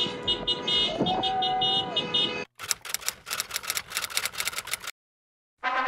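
Car horns honking in quick repeated toots, then a fast run of sharp cracks, about ten a second, for a couple of seconds that stops abruptly.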